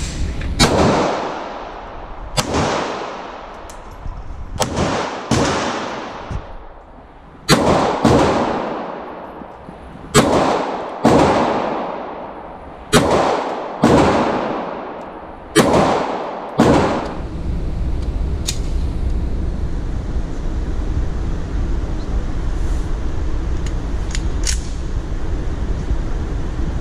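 About a dozen pistol shots from a Springfield XD-S 9mm, fired at a steady pace roughly one to two seconds apart, each one echoing in the enclosed indoor range. The firing stops about two-thirds of the way in, leaving a steady low rumble with a couple of faint clicks.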